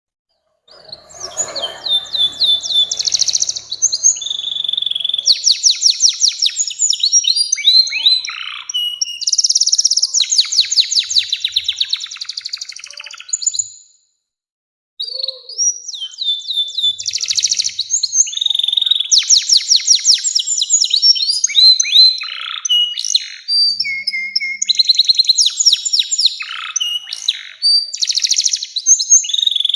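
Domestic canary singing long rolling song phrases of fast trills and sweeping whistled notes, breaking off once for about a second partway through before starting again.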